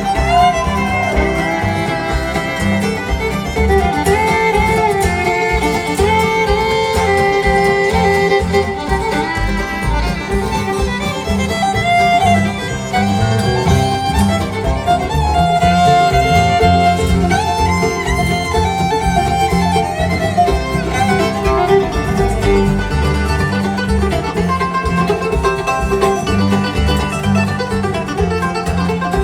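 Bluegrass band's instrumental break: a fiddle takes the lead over banjo rolls, acoustic guitar and bass.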